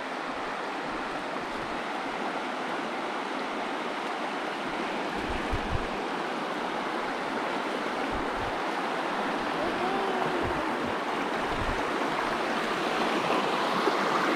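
Rushing water of a small rapid on the Delaware River: a steady rush that grows gradually louder.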